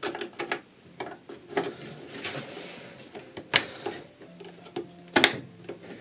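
Hands working inside a desktop PC case, pushing power cables aside and fitting a RAM stick: rustling and small plastic clicks, with two sharp clicks about three and a half and five seconds in, the second the loudest.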